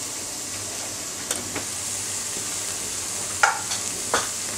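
Onion, tomato and spice masala sizzling steadily in a stainless steel pot on high heat, with a metal spoon clinking against metal about five times as the spice is added and stirred in.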